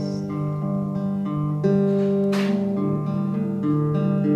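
Solo guitar played live, holding chords that change every second or so in an instrumental gap between sung lines.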